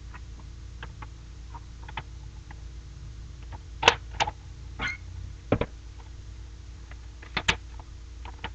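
Plastic clicks and knocks of a Nerf Spectre toy blaster being handled, a scattering of light ticks with a few sharper clicks in the middle and a close pair near the end.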